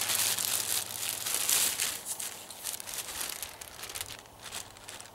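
Clear plastic bag crinkling and rustling as a packaged air mattress is pulled out of it. The crinkling is busiest in the first two seconds and tails off toward the end.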